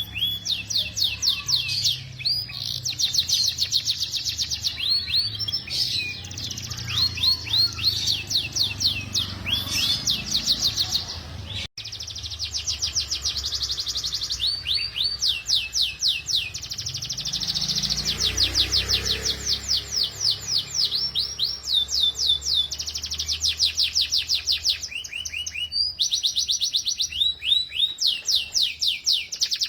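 Domestic canary singing long rolling trills of fast repeated notes, high-pitched, in near-continuous runs, with a very brief break about twelve seconds in.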